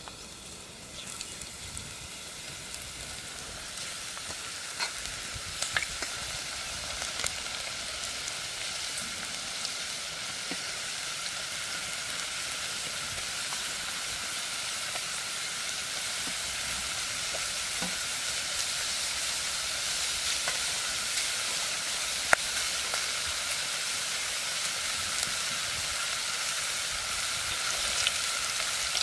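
Thin potato slices deep-frying in hot oil in a clay pot, a steady sizzle that grows louder as more slices go in, with scattered crackles and pops. Near the end the slices are stirred with a wire skimmer.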